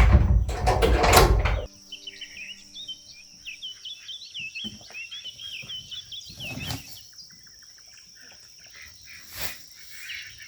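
Loud rustling noise for about the first second and a half, cutting off abruptly. Then small birds chirping in a quick twittering run, over a steady high insect drone, with a few soft thumps.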